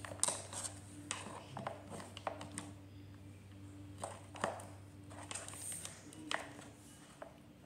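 Plastic fashion dolls being handled on a wooden floor: a scatter of light taps and clicks with some rustling.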